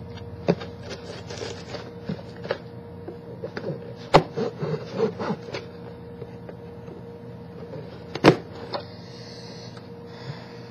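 A mailed package being worked open with a butter knife: scraping and rubbing of the packaging, with two sharp knocks, about four and eight seconds in.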